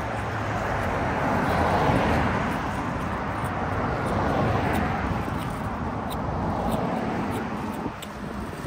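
Road traffic: cars passing close by, a rush of tyre and engine noise that swells about two seconds in and again a little past four seconds, then eases off.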